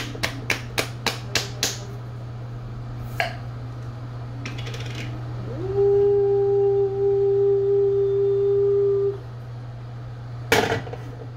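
A palm slaps the lid of a jar of Alfredo sauce about four times a second to loosen it; a couple of knocks follow as the lid comes off. While the sauce is poured into a steel saucepan, a steady tone rises briefly and then holds for about three seconds, the loudest sound here. Near the end the metal pot clanks against the gas stove grate.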